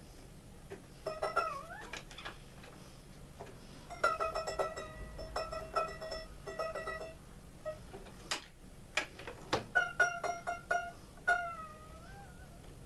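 Scroll saw blade being plucked over and over to gauge its tension. Each pluck gives a short pitched ping. Twice the ringing pitch bends, once about a second in and again near the end, as the tension changes while the blade rings.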